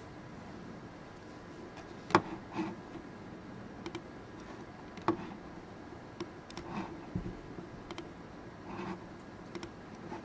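Irregular clicks and key taps of a laptop being operated, about a dozen spread unevenly, the sharpest about two and five seconds in, with a low knock near the middle. A faint steady room hum sits underneath.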